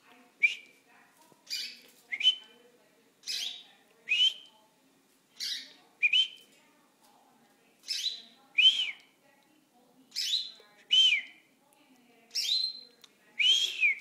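Domestic canary giving short, sharp single call notes about once a second, often in pairs, instead of its usual song. The owner puts this down to stress at being watched by a dog.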